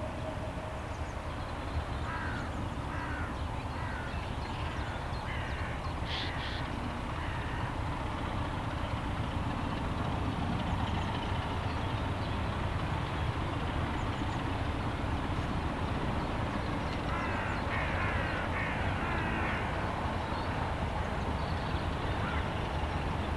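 A bird, crow-like, calling in two runs of short, falling calls: one a few seconds in and another after about seventeen seconds, over a steady low rumble.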